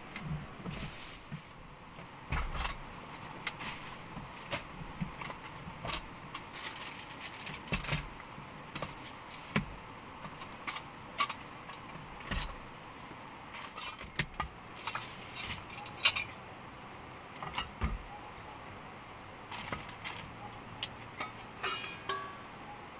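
Irregular clicks, clinks and knocks of objects being handled, a few a second at most, over a steady low hiss.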